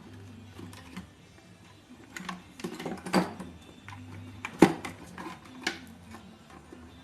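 Irregular clicks and knocks of tools and casing parts being handled while a home theatre subwoofer unit is taken apart, the sharpest knock about two-thirds of the way through, over faint low background music.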